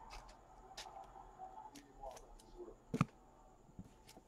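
Faint handling noises of trading card packs on a card mat: light rustles and small clicks, with one sharper knock about three seconds in.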